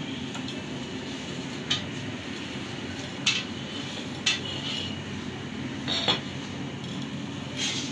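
Metal roller cutter being pushed across a slab of peanut-jaggery chikki to score it into pieces, giving several sharp metallic clinks at irregular intervals over a steady low hum.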